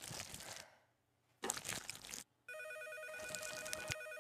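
A telephone ringing with a rapid electronic trill, starting about two and a half seconds in and running on past the end. Just before it, about a second and a half in, comes a short, loud noisy clatter.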